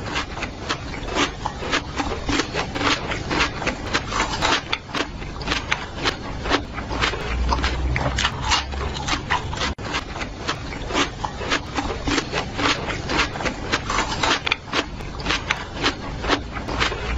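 A gorilla chewing and tearing a fibrous plant stalk: a dense, irregular run of crunching and snapping clicks, several a second.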